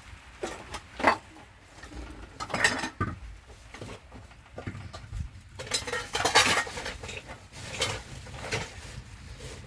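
Metal pots and dishes clattering as they are handled, in several irregular bursts of clinks and rattles, the loudest about a second in and around the middle.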